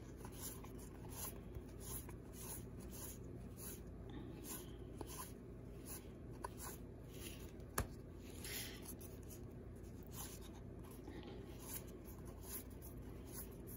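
Baseball trading cards being flipped one at a time from one stack to the other, each card sliding off with a faint papery swish about twice a second. One sharper tick comes a little past halfway.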